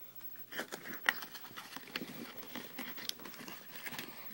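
Cardboard box and inserts rustling, scraping and tapping as a hand works the packaging out, a string of irregular small clicks with one sharper tap about a second in.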